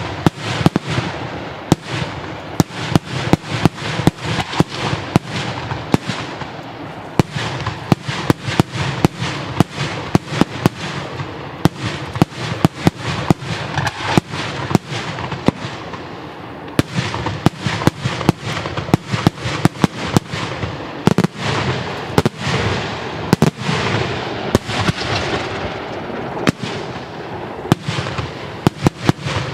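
Daytime aerial fireworks shells bursting in a dense, continuous barrage: sharp bangs several times a second over a steady low rumble.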